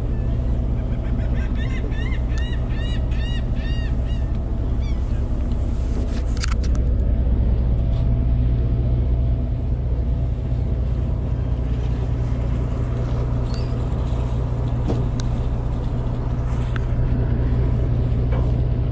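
Fishing boat's engine running with a steady low hum. Between about one and five seconds in, a bird gives a quick series of rising-and-falling cries, several a second.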